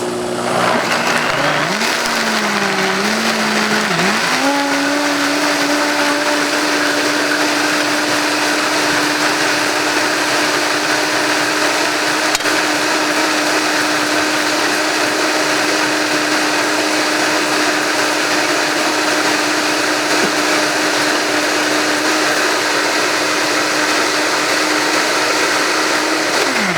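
Electric blender pureeing corn soup: started on low, its motor speeds up and wavers over the first few seconds, then runs at a steady pitch until it is switched off near the end and winds down.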